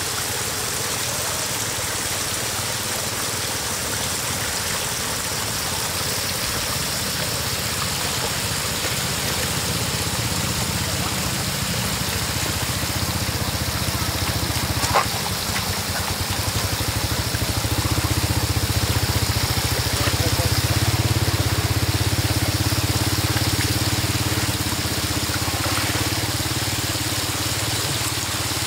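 Floodwater running and trickling in a steady rush, with an engine running steadily underneath that grows louder in the second half. A single sharp click about halfway through.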